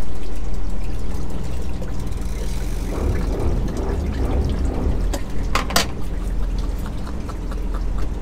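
Water pouring and splashing in a boat's livewell as a mesh dip net scoops a bait fish out, over a steady low hum. There are a couple of sharp knocks a little past halfway.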